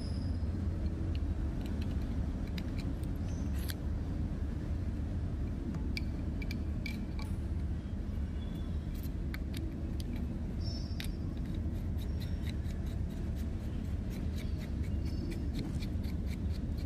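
Machined aluminium air rifle valve and tube parts clicking and scraping lightly as they are handled and fitted together by hand: scattered small metallic clicks over a steady low hum.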